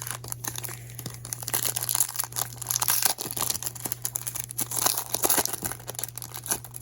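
Crinkly plastic wrapper of a trading-card pack being torn open and crumpled by hand, a dense run of crackles and rips that stops just before the end.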